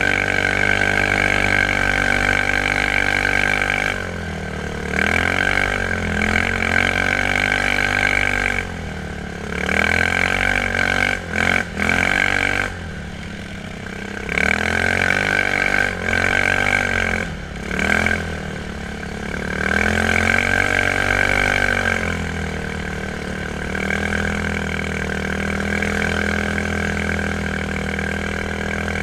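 Quad bike (ATV) engine running under way, its revs rising and falling over and over as the throttle is opened and closed, with a few short drops off the throttle along the way.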